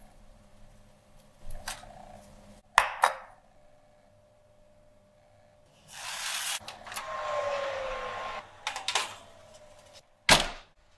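Kitchen handling sounds: a few sharp knocks and clinks, then a metal sheet pan scraping and sliding for about two seconds, and a single loud thunk near the end.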